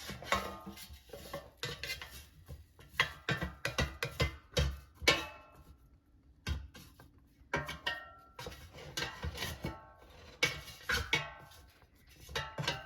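A metal utensil clinking and tapping against a metal air fryer basket while broccolini is turned over: irregular taps, some with a short ring, with a brief lull about six seconds in.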